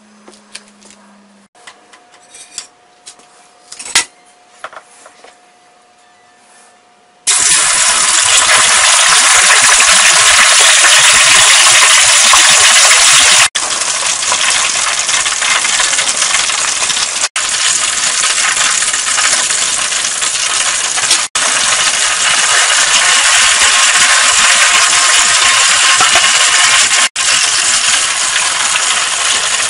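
Soy-marinated chicken quarter deep-frying in hot oil in a stainless stockpot: loud, steady sizzling and bubbling that starts suddenly about a quarter of the way in, after a few faint handling clicks.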